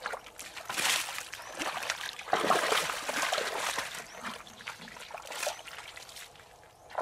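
Water splashing and sloshing as bare feet wade through a shallow mud puddle, in uneven bursts, the loudest about two and a half seconds in.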